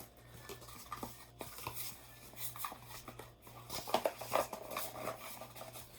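Light taps, knocks and rustles of a product box and its contents being handled and packed back in, with a busier run of taps about four seconds in.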